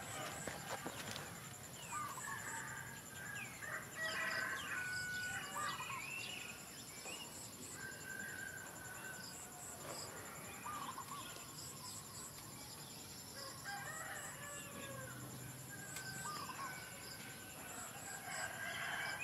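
Chickens clucking, with a rooster's drawn-out crow now and then, repeating on and off throughout, over a steady high-pitched hum.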